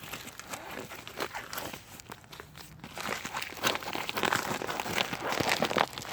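Packaging crinkling and rustling as a mailed package is handled and opened, in irregular scratchy bursts that grow busier after about three seconds.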